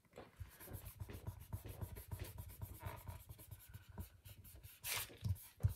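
Fingertips rubbing a paper sticker down flat onto a planner page: a faint run of quick papery rubbing strokes, with a couple of louder strokes near the end.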